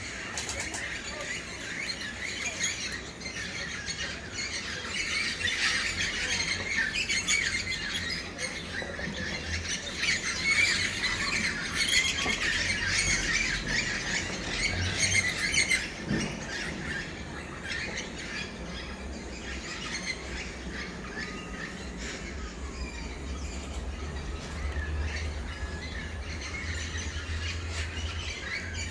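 Many birds calling at once, short chirping and squawking calls overlapping thickly, busiest through the middle, over a low steady rumble.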